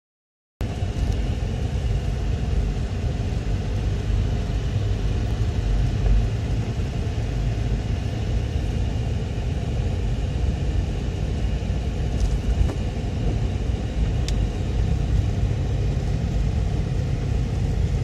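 Steady low rumble of a car driving on a snow-covered road, heard from inside the cabin: engine and tyre noise.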